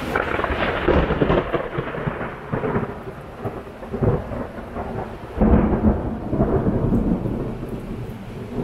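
Thunder rolling over steady rain: a peal breaks in suddenly, rumbles irregularly, and swells again a little past halfway before slowly dying away.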